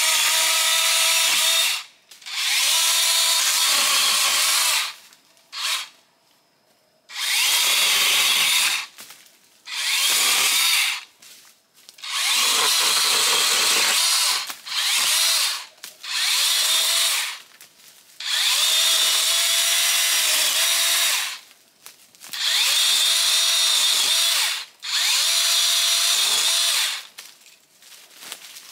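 DeWalt cordless pole saw's electric motor and chain whirring in about ten bursts of one to three seconds, started and stopped on the trigger as it cuts overhead branches.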